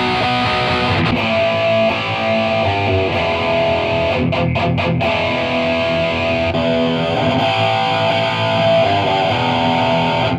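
Overdriven electric guitar riff from a Heritage guitar played through a Marshall 1960A 4x12 speaker cabinet, picked up by a ribbon room microphone. About six and a half seconds in it switches from the old, worn cab to the brand-new one, and the tone turns noticeably brighter.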